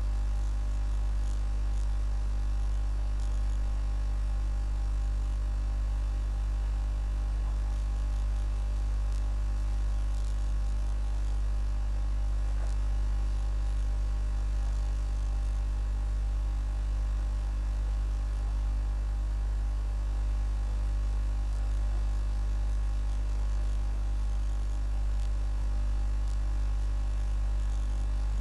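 Steady low electrical mains hum with a stack of higher overtones.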